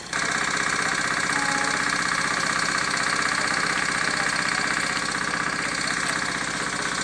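An engine idling steadily, with a fast even pulse. It starts abruptly at the beginning and keeps a constant level.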